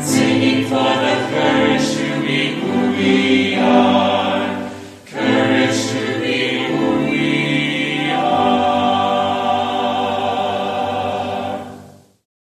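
Small mixed choir singing a hymn, with a brief break about five seconds in; the last chord is held and fades out near the end.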